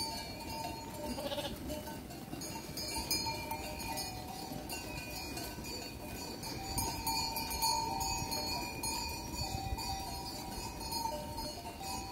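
Many sheep bells ringing together from a large flock of sheep, a continuous jangle of overlapping tones.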